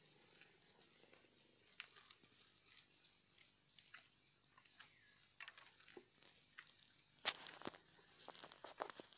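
Faint, steady high-pitched chirring of insects, with scattered clicks and knocks, the loudest a sharp click about seven seconds in. A single high steady whine joins for about two seconds past the six-second mark.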